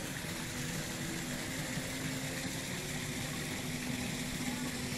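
Steady low mechanical hum under an even wash of background noise.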